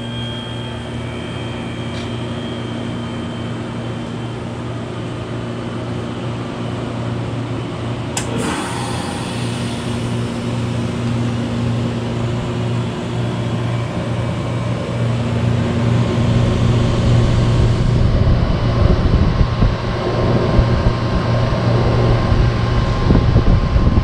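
1993 Comfort-Aire 18,000 BTU window heat pump running through its defrost cycle: a steady compressor hum, one sharp click about eight seconds in, and a rush of air that grows louder over the last third.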